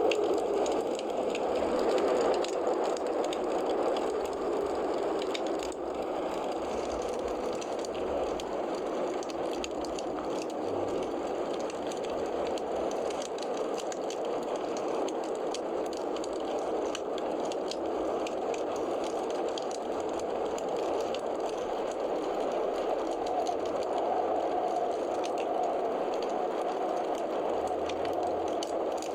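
Wood fire burning in a fireplace, crackling with many small, irregular pops over a steady noise.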